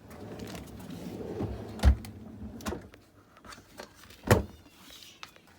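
Refrigerator drawer sliding on its rails with a rumble for about three seconds, then knocking shut, with a louder sharp knock about four seconds in.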